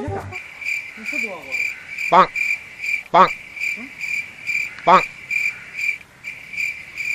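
Cricket chirping in a steady, rapid pulse, two to three chirps a second, with a brief break near the end. A person's voice makes a few short pitched sounds over it, three of them between about two and five seconds in.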